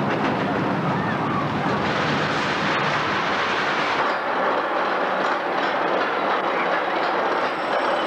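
Steel roller coaster train running along its track: a steady rumble and clatter of wheels on rail, its deepest part dropping away about halfway through.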